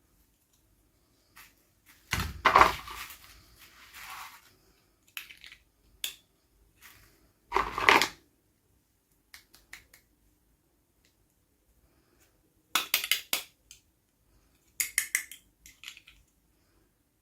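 Toy packaging being handled and opened by hand: two bursts of crinkling around two and eight seconds in, then clusters of sharp plastic clicks and taps.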